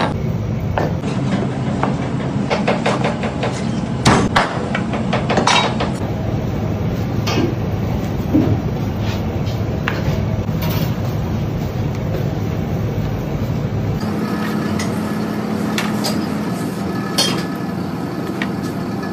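Heavy cleaver chopping through a large whole fish into steaks, knocking repeatedly on the plastic cutting board in the first few seconds, over a steady low hum.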